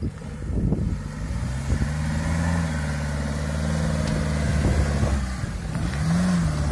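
Daihatsu Feroza's four-cylinder engine running at low speed as the off-roader crawls over rough hillside ground, with a brief rise and fall in revs about six seconds in.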